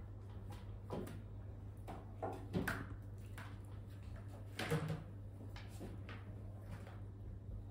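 Irregular knocks and scraping handling noises, the loudest about two and a half and almost five seconds in, over a steady low hum.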